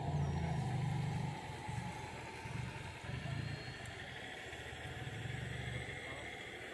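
Low engine-like drone from radio-controlled scale-model construction and farm vehicles at work, swelling and fading in spells of about a second.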